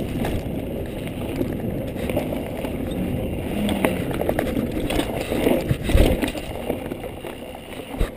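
Mountain bike ridden fast down a dirt trail: the tyres make a steady rumble on the dirt while the bike rattles and clicks over bumps, with a heavier knock about six seconds in.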